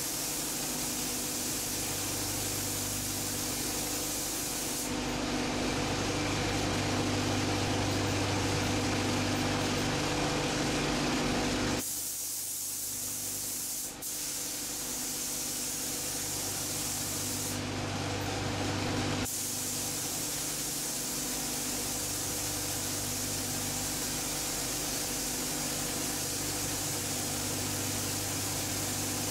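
Compressed-air paint spray gun hissing steadily as paint is sprayed onto a car body, over a steady low hum. The hiss grows stronger for a stretch in the middle, then eases, with a brief dropout about fourteen seconds in.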